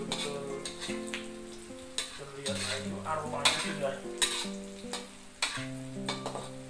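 Garlic, shallots and red chilli sizzling in hot oil in a wok while a spatula stirs and scrapes them, knocking sharply against the pan a few times. Background music with sustained notes plays underneath.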